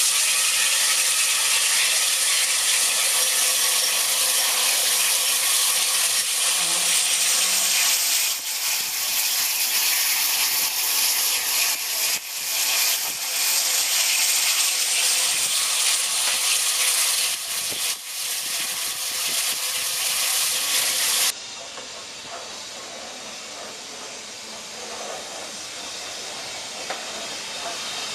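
Unrebuilt West Country class Pacific 34007 Wadebridge standing at the platform with steam hissing loudly and steadily, which cuts off suddenly about 21 seconds in. After that, quieter train sound as a BR Standard Class 9F steam locomotive runs slowly alongside the platform.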